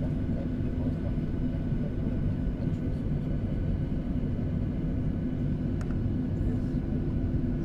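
Steady cabin drone of a Boeing 737-800 on the ground, its twin CFM56-7B engines at idle, heard inside the cabin from a window seat over the wing. The noise is an even, low rumble with a thin steady hum on top.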